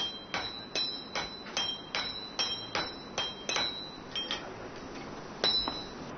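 Hammer blows on hot iron on a blacksmith's anvil, about two and a half strikes a second, each with a ringing clang. The steady hammering stops about four seconds in, with one more blow a little over a second later.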